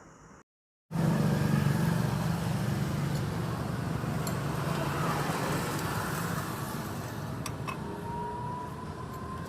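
A motor vehicle engine running steadily and slowly fading, with a few sharp clicks near the end.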